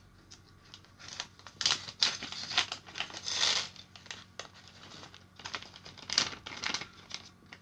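Clear plastic kit bag crinkling as it is handled, tipped and shaken to empty out small electronic components, in irregular bursts with short light ticks; the longest, loudest rustle comes about halfway through.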